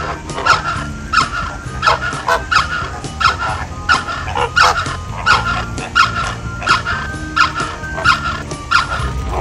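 Greater flamingo honking in a steady series of calls, about three every two seconds, which stop shortly before the end.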